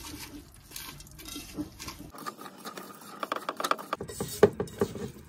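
Hand mixing raw rice and lentils with spices and oil in a rice cooker's non-stick inner pot: the grains rustle and patter against the pot in quick, irregular ticks, with a few sharper clicks about four seconds in.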